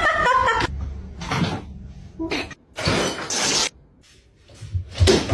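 A cat's sounds, coming as several short noisy bursts with quiet gaps between them.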